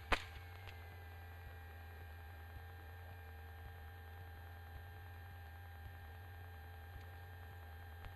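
Steady low electrical hum with a few faint steady tones above it, and a single click just after the start.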